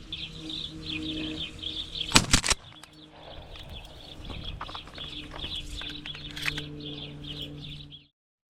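A flock of house sparrows and European starlings chirping and chattering continuously over a steady low hum. A little over two seconds in comes a loud, sudden burst of several sharp strokes, and the sound cuts off abruptly shortly before the end.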